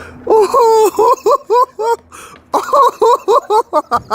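Hard, high-pitched laughter in rapid pulses, about six a second, in two bouts with a short break between them.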